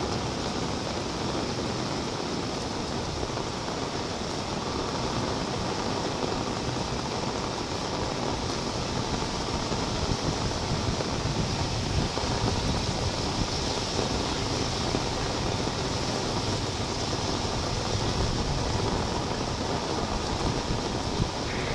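Heavy rain falling on a wet road and pavement: a steady, even hiss.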